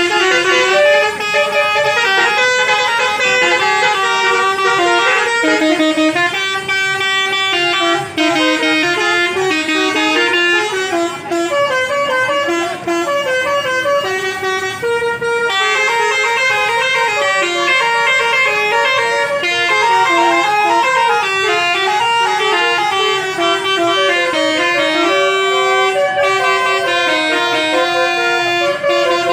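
Basuri musical air horn on a bus playing a tune: a continuous run of loud horn notes stepping up and down in pitch, with only short breaks.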